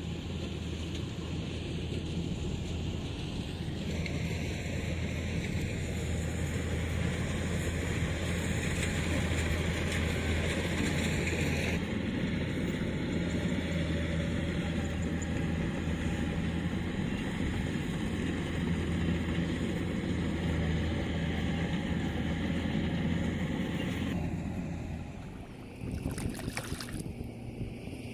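A motor running steadily with a low hum, dying away near the end, followed by a few sharp knocks.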